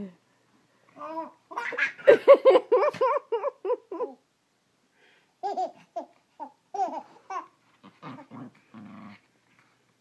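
A baby laughing and babbling in quick bursts, loudest early on, with a dog's low growl near the end.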